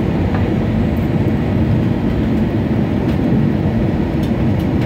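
Steady low rumble of a Jetstar Airbus A320 in flight, heard from inside the passenger cabin: engine and airflow noise on approach to landing.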